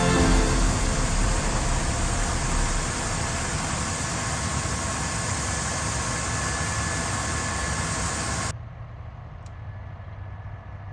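Vehicle engine running steadily under a loud even hiss. About two-thirds of the way through it cuts abruptly to a quieter, steady low engine hum.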